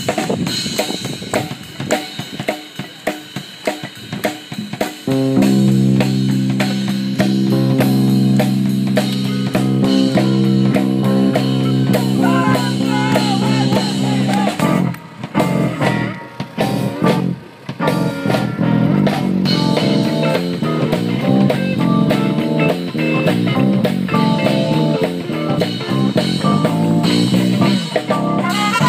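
Live jazz band with drum kit, electric guitars and keyboard. It opens with a few seconds of drums alone, snare and rimshot hits included. The band then holds a long sustained chord with guitar lines over it, breaks off for a few drum hits, and comes back in playing together for the last ten seconds or so.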